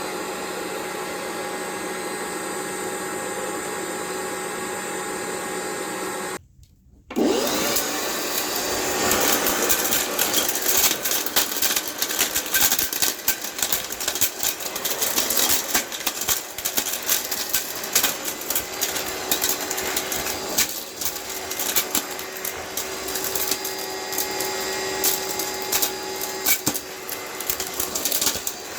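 Vintage Eureka The Boss vacuum cleaner's motor running at a steady pitch. After a short break, a dense, irregular clatter of knocks and rattles, with the motor's steady tone still faintly under it.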